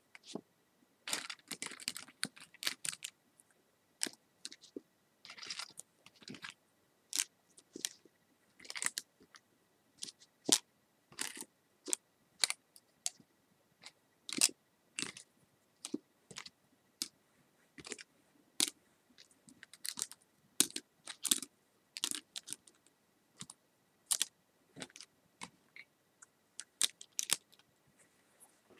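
Irregular light taps and clicks made for ASMR, a few a second, some in quick runs of two or three, with short pauses between.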